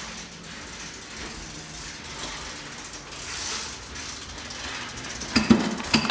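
Bicycle freewheel hub ticking as the rider coasts, with a few sharp clacks near the end.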